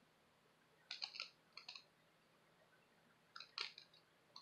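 Faint plastic clicks and ticks from a thermal paste syringe being handled and its cap pulled off, in a few short clusters with near silence between them.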